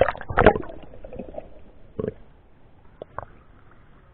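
River water splashing and gurgling as a magnet-fishing line drags a soaked shirt up out of the water. Two loud splashes come right at the start, with smaller splashes about two and three seconds in.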